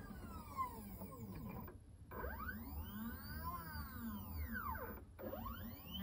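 Stepper motors of a DIY CNC mill driving its axes. They whine in a pitch that rises and then falls as each move speeds up and slows down, with short pauses about two seconds and five seconds in between moves.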